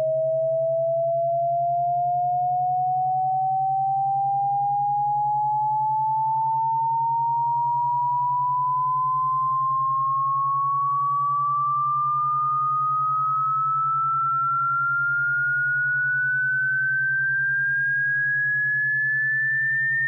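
Synthesized pure sine tone slowly rising in pitch throughout, from a mid whistle to a high whistle, over a steady low hum: an electronic tone sweep played as a cat-repellent sound.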